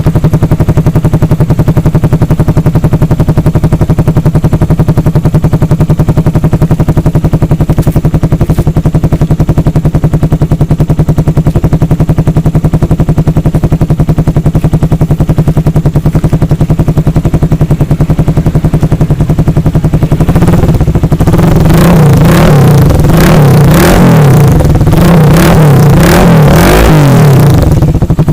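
Suzuki Raider 150 single-cylinder engine idling steadily through an aftermarket Akrapovic-type muffler with its silencer cover removed, then blipped repeatedly for several seconds near the end, the pitch rising and falling with each rev before dropping back to idle.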